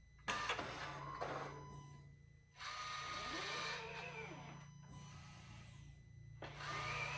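Electric pumps and actuators of a 2020 BMW X3 M40i whirring and buzzing while its engine computer is flashed back to the stock tune. The sound comes in four separate bursts of a second or two each, the first starting suddenly about a third of a second in.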